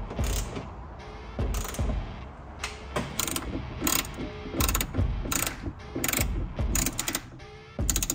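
A socket ratchet wrench being swung back and forth to tighten a nut onto a stud. Each return stroke gives a quick run of pawl clicks, and the strokes repeat about every half second to second.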